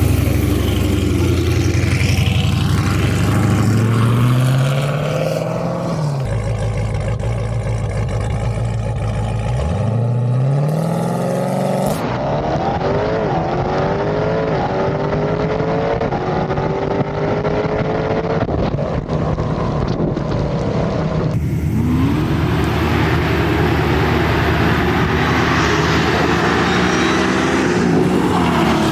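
High-performance car engines accelerating hard at full throttle, the engine pitch climbing again and again, in several short clips cut together.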